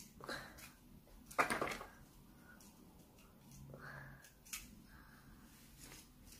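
Rustling and handling of a cardboard toy box and its contents, in a few short bursts with the loudest about a second and a half in, and a small click later on.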